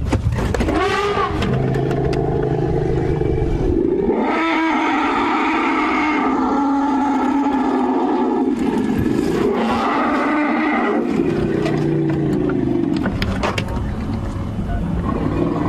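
African elephants trumpeting and roaring in long, loud, brassy calls, one lasting about four seconds starting some four seconds in and another about ten seconds in: agitated elephants chasing wild dogs.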